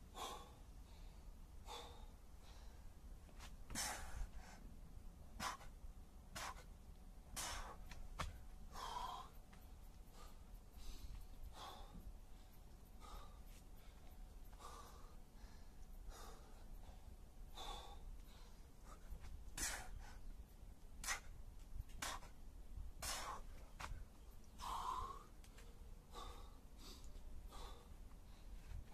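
A man breathing hard after strenuous exercise, with short, heavy breaths in and out about every second or two.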